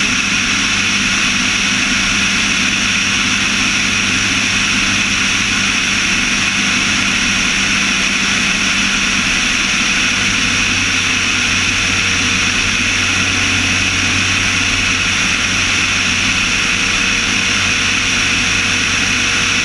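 A propeller aircraft's engine and propeller running at a steady, unchanging pitch, with wind rushing over a camera mounted on the airframe.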